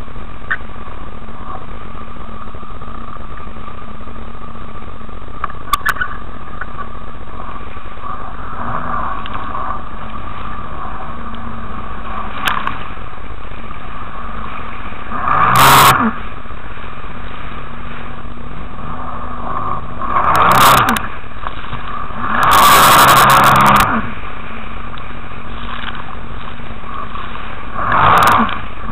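Jet ski engine running steadily under way at speed, with four loud bursts of rushing water as spray and wave slaps hit the hull and the camera, the longest lasting over a second.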